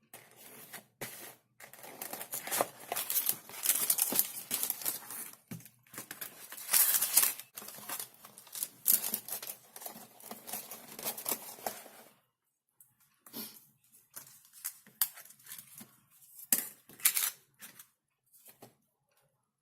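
Takeaway food packaging being handled close to the microphone: a long stretch of dense crinkling and tearing of paper and plastic, then after a brief pause a string of separate short rustles and clicks.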